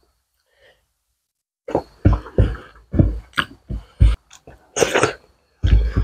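A quick run of short, sharp mouth or throat noises from a person eating close to the microphone, starting almost two seconds in, two or three a second.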